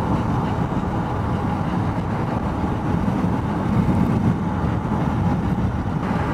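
Steady road and engine noise of a car being driven, heard from inside the cabin.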